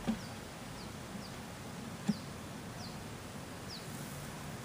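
Honeybees humming faintly around an open hive while a bird repeats short, high chirps that fall in pitch. A single sharp knock comes about two seconds in.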